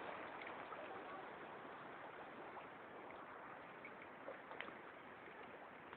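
Faint steady hiss, with two faint ticks about four and a half seconds in.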